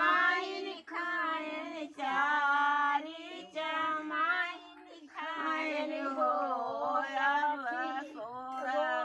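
Village women singing a sohar, the folk song sung at a childbirth, unaccompanied, with wavering held notes and a brief pause about five seconds in.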